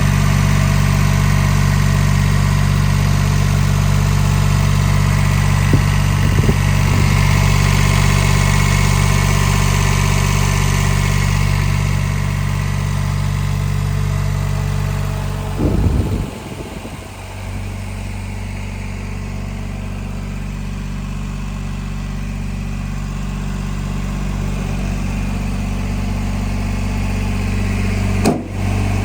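Small diesel engine of a Yanmar YB10 crawler backhoe running steadily. After a brief disturbance about halfway through, it settles to a quieter, lower-pitched running sound.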